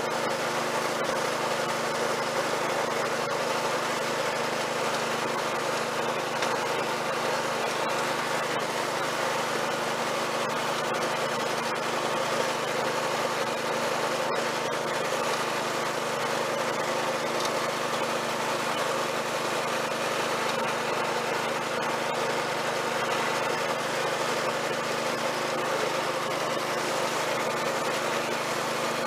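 Snapper rear-engine riding mower's engine running steadily while the mower is driven along, an even drone that holds one pitch throughout.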